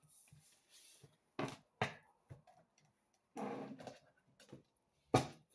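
Tarot deck being handled and shuffled: a few sharp clicks of cards tapped or snapped together, and one short rustle of shuffling cards a little past the middle.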